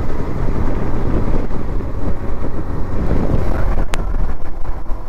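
Loud wind buffeting on the microphone of a KTM 390 Adventure motorcycle ridden at high speed, with a steady rumble of road and engine noise beneath. There is one sharp click about four seconds in.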